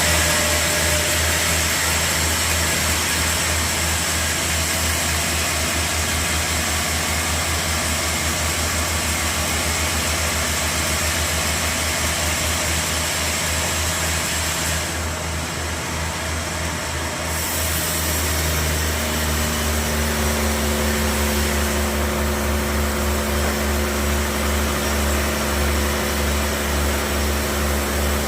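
Sawmill saw and its engine running while cutting through a large log: a steady drone with a pulsing low throb under a wide hiss. About two-thirds of the way through, a steady pitched whine comes in over it.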